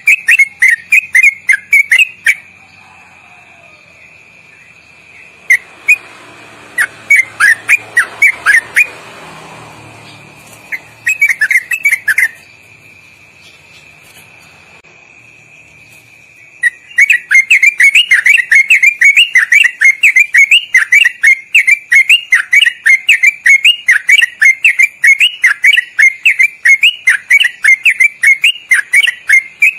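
Yellow-vented bulbul (trucukan) singing its long, loud 'ropel' song: rapid chattering whistled notes, about five a second, bouncing up and down in pitch with quick turns. The song breaks off about two seconds in, returns in short spurts, then runs unbroken through roughly the last thirteen seconds.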